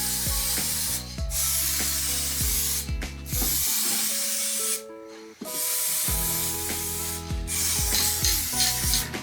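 Aerosol spray can of clear lacquer hissing in about five long bursts of a second or two each, with short pauses between, as coats are sprayed onto a bike frame. Background music with a steady beat plays underneath.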